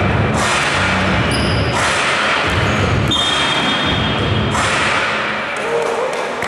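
Basketball game sounds in a large hall: the ball bouncing and thudding on the court over steady noise from the crowd and players.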